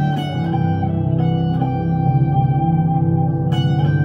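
1965 Fender Stratocaster played through a Glaswerks Zingaro tube amp with a 12-inch Celestion speaker: a few single picked notes ringing out over sustained lower notes.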